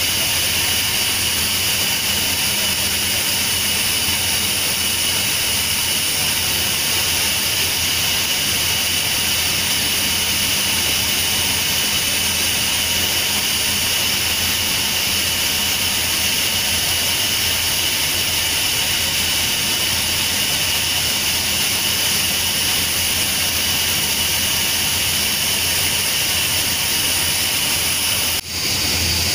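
Steam locomotive No. 850 standing with steam hissing steadily from a valve on top of its boiler, over a faint low hum. The hiss breaks for an instant near the end.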